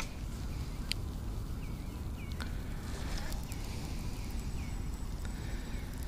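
A sharp click at the start, then outdoor quiet with a bird chirping faintly over and over in short notes.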